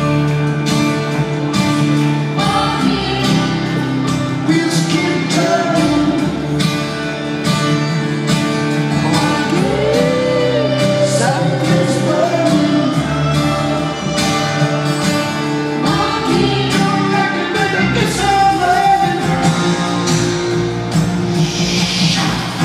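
A rock band playing live with a steady drum beat under a sung melody, heard from the stands of a large arena.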